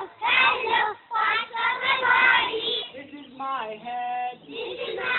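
Children singing a song in short phrases of about a second each, with one longer held note near the end.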